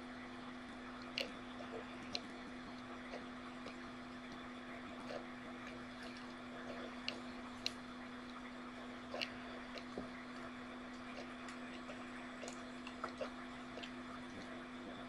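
Faint steady hiss and low hum of a desk microphone's room tone, with scattered small sharp clicks at irregular intervals.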